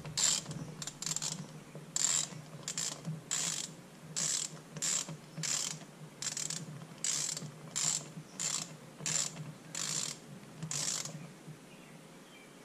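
Hand ratchet clicking in short repeated strokes, about one or two a second, as bolts are run down on a transmission case half. The clicking stops about 11 seconds in.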